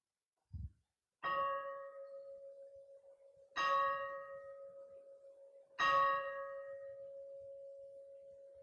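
Altar bell struck three times about two seconds apart at the elevation of the consecrated host. Each strike rings one clear, steady tone that fades slowly, and the last is still sounding at the end. A soft low thump comes just before the first strike.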